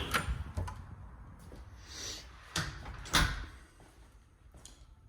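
A door being opened and shut: a few clicks and knocks, a short rush of noise, then two sharper knocks, the louder one a little past three seconds in.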